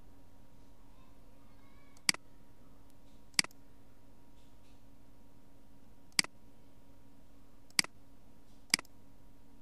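Five sharp computer mouse button clicks, spaced irregularly, over a faint steady hum.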